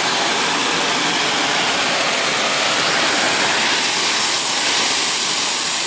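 Oxy-fuel cutting torch burning with a neutral flame: a steady, loud, even hiss as the flame heats aluminum bar stock for brazing.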